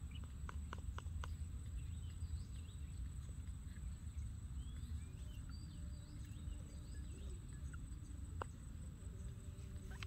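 Outdoor rural ambience: a steady high insect drone with scattered bird chirps over a low rumble. A few short clicks come in quick succession about half a second to a second in, and one more near the end.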